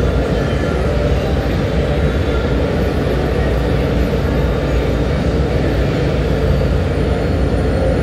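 Industrial annealing furnace running with its burners firing: a steady, even rumble with a low hum underneath.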